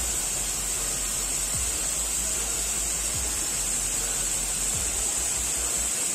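Minoh Falls waterfall rushing, a loud steady hiss of falling water. A slow beat of background music, with a low thump about every second and a half, sits underneath.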